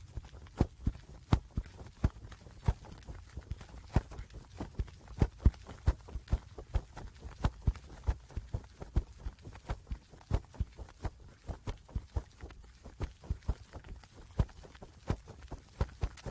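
A bird's wings flapping: a steady run of short, sharp wingbeats, about three or four a second, some louder than others.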